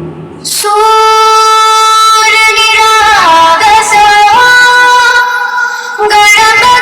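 Vocal section of a sound-check demo track played loud through a stage monitor fitted with a P Audio 15BM-400B V3 speaker: music with long held sung notes that step down in pitch, starting about half a second in.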